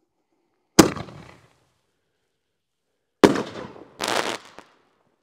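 Consumer canister firework shell fired from a mortar tube: a sharp launch bang about a second in, then about two and a half seconds later the report of the shell breaking in the air, followed by a short second burst of noise as the stars spread.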